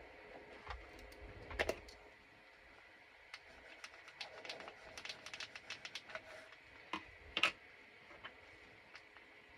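Light clicks and taps of paper-crafting supplies being handled on a table, with a run of quick light ticks in the middle and a couple of louder clicks about two seconds in and near the end.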